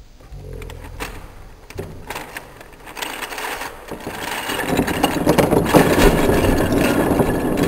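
Plastic pieces of a V-Cube 6 (a 6x6 twisty puzzle) clicking as it is twisted, then a dense, loud rattling clatter from about four and a half seconds in as the cube comes apart and its pieces are worked loose and scatter across a wooden table.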